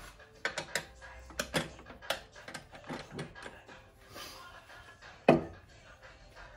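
Scattered clicks and knocks of a wooden bowl and a metal tool being handled as the bowl is taken off a wood lathe's chuck and set down, with one louder knock about five seconds in.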